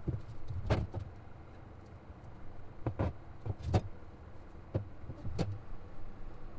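A steady low engine rumble with about five sharp knocks spread over several seconds, the loudest near the middle.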